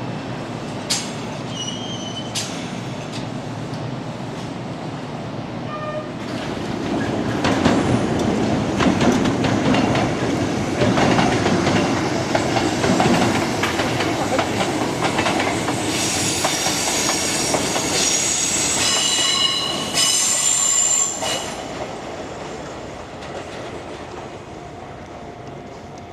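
A Kintetsu Minami Osaka Line train passes over the station level crossing, its wheels clattering over the rail joints. The sound builds about six seconds in, and the wheels squeal in high tones for several seconds near the end of the pass before it fades away.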